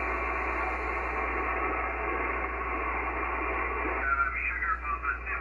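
Received single-sideband voice from an ICOM IC-7300 HF transceiver's speaker: steady band static with a voice faintly under it, narrow and thin in tone. About four seconds in, a clearer, stronger voice comes through the static.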